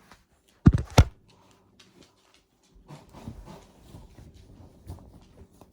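Two sharp knocks about a third of a second apart, followed by faint handling clatter and rustling.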